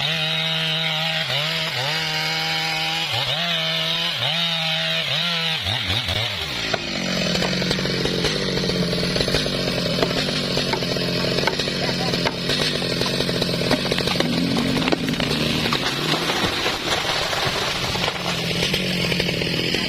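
Petrol chainsaw running and cutting wood. For about the first six seconds its engine note dips and recovers over and over, a little more than once a second. It then settles into a steadier, rougher note under load.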